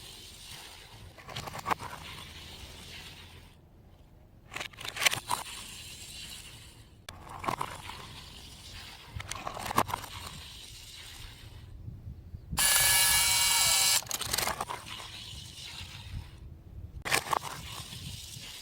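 Scattered clicks and scrapes of small diecast toy cars and plastic track being handled, with a loud hiss lasting about a second and a half past the middle.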